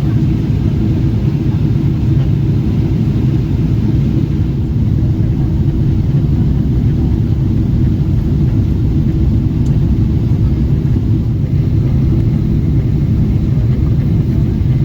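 Steady low rumble of cabin noise inside a Boeing 777-300ER, its engines heard through the fuselage, holding even with no change.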